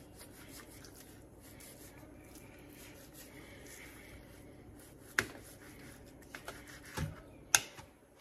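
A knife slicing and scraping fat off raw boneless lamb on a plastic cutting board, with soft rustling from handling the meat. There are sharp knocks on the board about five seconds in and near the end, and a duller thump just before the last one.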